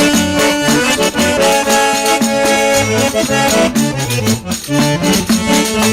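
Instrumental break in a gaúcho folk song: accordion leading over bass and a steady rhythm, with no singing.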